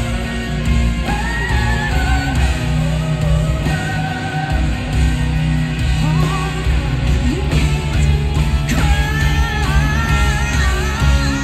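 Live band performance, recorded from the audience: a woman singing lead into a microphone over electric guitars and a full rock backing.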